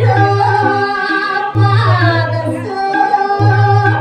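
A woman singing a Balinese geguritan, holding and sliding through long ornamented notes. Under her voice runs an instrumental accompaniment whose quick low pulse stops and starts every second or so.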